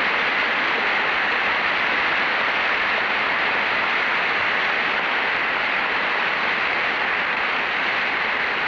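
A large audience applauding, a steady dense clatter of many hands.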